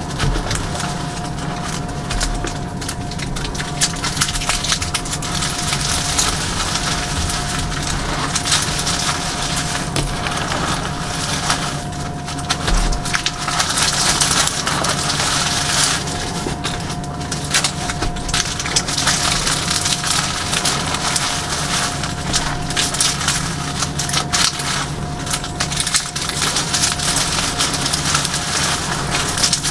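Bare hands squeezing and crushing handfuls of crunchy reformed gym chalk, a dense continuous crackle of chalk pieces crumbling into powder.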